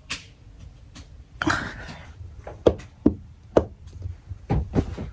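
A brief rustle followed by about five sharp knocks and thuds at irregular intervals.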